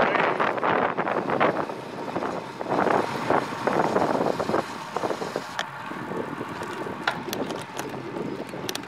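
Wind buffeting the microphone of a handlebar camera on a moving road bike, mixed with tyre noise from the road, in uneven gusts that ease off after about five seconds. A few sharp clicks come near the end.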